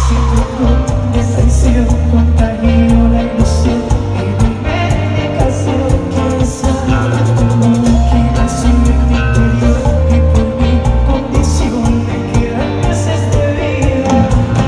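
Live bachata band playing, with electric bass and guitar, coming in abruptly right at the start and running on with a steady beat.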